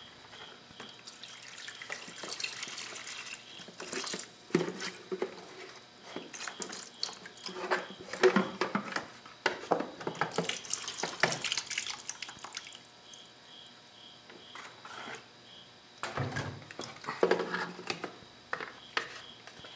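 Old engine coolant being poured out of a motorcycle's plastic coolant reservoir into a drain pan, trickling and dripping. The plastic tank knocks and rattles repeatedly as it is tipped and handled.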